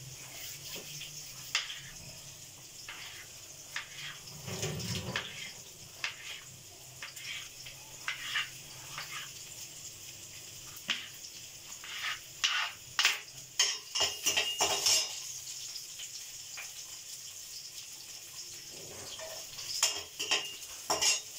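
Knife chopping vegetables on a wooden cutting board: irregular sharp knocks, coming in a quick cluster of chops about two-thirds of the way through. Near the end a metal spatula clatters in an iron kadai.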